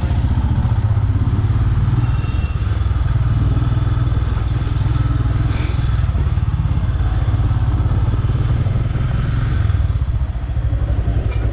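Royal Enfield Himalayan's 411 cc single-cylinder engine running at low road speed, a steady, even low thump.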